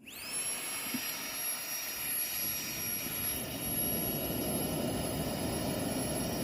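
Small battery-powered air pump, a Flextail-style Tiny Pump, switched on and inflating something. Its motor spins up with a quick rising whine, then runs steadily with a high whine over a rush of air.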